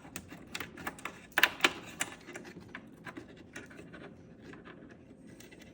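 Irregular light plastic clicks and taps as a replacement microswitch is handled and fitted into the plastic mount of a refrigerator's ice dispenser assembly, with two sharper clicks about one and a half seconds in.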